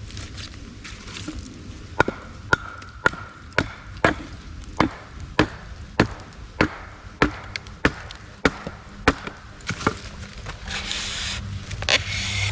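A cutting tool chopping into wood in a steady series of about fifteen sharp strikes, roughly two a second. The strikes start about two seconds in and stop after about ten seconds.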